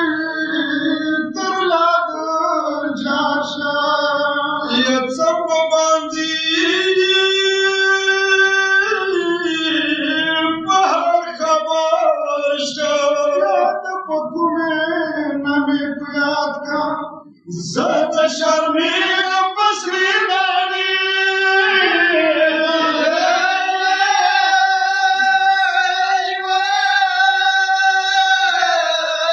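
A voice chanting a Pashto noha, a Shia lament, in long held melodic lines, with one brief break a little past halfway.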